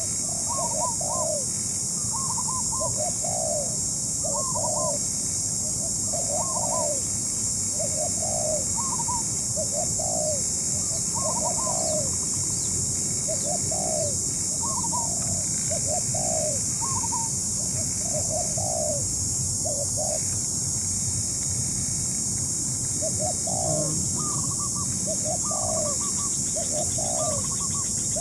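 Spotted doves cooing over and over, short phrases of low coo notes, some with a higher note above, coming about one a second, over a steady high hiss.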